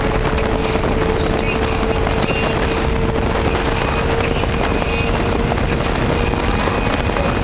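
Lotus Elise's four-cylinder engine pulling at steady revs under wind and road noise, heard from inside the cabin.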